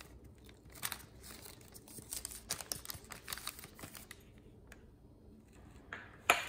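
Rubber-gloved hand patting and smoothing a cornstarch-dusted slab of nougat in a parchment-lined pan: a run of soft brushing and rustling strokes. A single sharp knock near the end.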